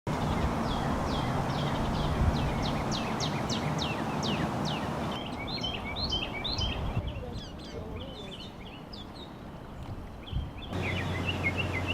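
Songbirds singing outdoors over a steady background hiss. The first five seconds hold a quick run of repeated down-slurred chirps, about three to four a second, followed by more varied chirping notes.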